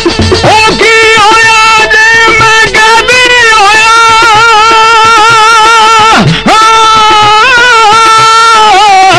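A male folk singer holding long, high sung notes with wavering ornaments in Punjabi Sufi verse. About six seconds in, the voice slides down and breaks off briefly, then takes up the held note again.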